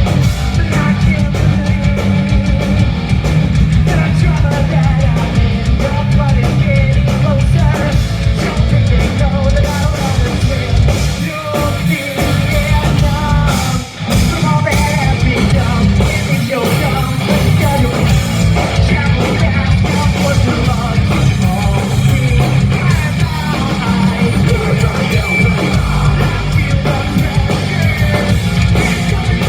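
Loud live rock band performance: distorted electric guitars, bass, drums and sung vocals, with a heavy, boomy low end. The music thins out briefly about halfway through, then comes back in full.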